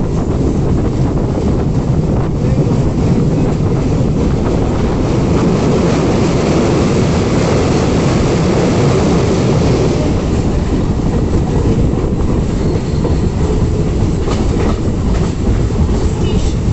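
A train running on the track, its wheels clattering over the rail joints in a steady, loud rumble.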